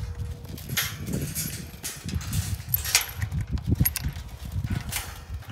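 Wind buffeting the microphone in a low, uneven rumble, with a handful of sharp clicks and rattles as a steel tube farm gate and its latch are handled.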